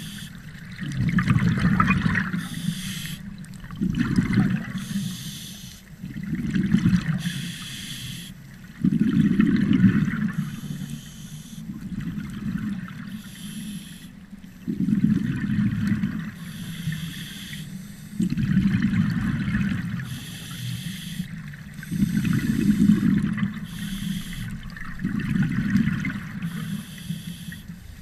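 Scuba diver breathing through a regulator underwater: a short hiss on each inhale, then a louder burst of bubbling as the exhaled air vents, repeating about every three seconds.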